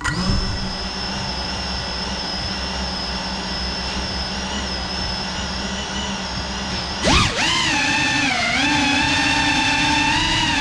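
GEPRC Cinelog 35 cinewhoop FPV drone's brushless motors and ducted propellers, heard from the onboard camera: they start suddenly and hold a steady idle whine. About seven seconds in the throttle is punched for takeoff, and the whine jumps higher in pitch, then dips and rises again with the throttle.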